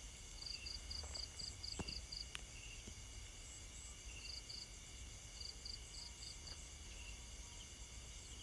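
Faint insect chirping: runs of short high pulses, about five a second, starting and stopping a few times over a steady high buzz of other insects.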